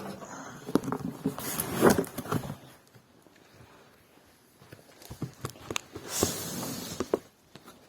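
Handling noises of a PC being worked out of its cardboard shipping box: scattered knocks and rustling of the box and packing, a lull midway, then more knocks and a longer rustle near the end.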